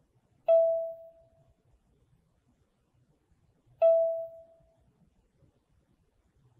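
A bell-like chime tone struck twice, about three seconds apart, each note ringing out and fading over about a second.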